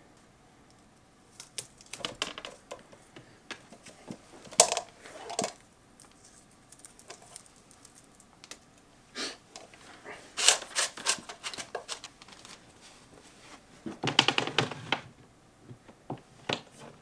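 Handling noise from speaker cable being worked at an opening in the drywall: scattered clicks, rattles and rustles in bursts, the fullest one near the end.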